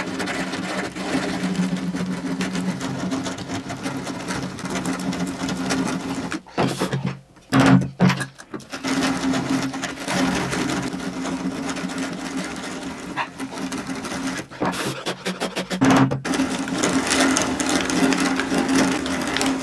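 A 35 mm Forstner bit turned by hand with a ratcheting handle, boring a hinge-cup hole in melamine-faced particleboard: a rapid run of ratchet clicks and cutting scrapes. It breaks off briefly about seven seconds in and again near sixteen seconds.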